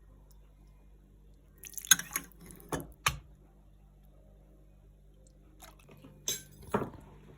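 Kitchen utensils and dishware clinking and knocking: a few sharp taps about two to three seconds in, and another short cluster near the end.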